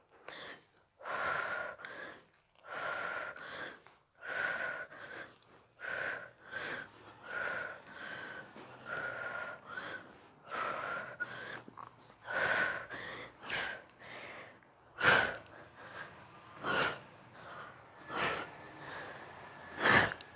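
A woman breathing hard and rhythmically through a strenuous exercise, a heavy breath about every second and a half. In the last few seconds four sharper, louder sounds stand out.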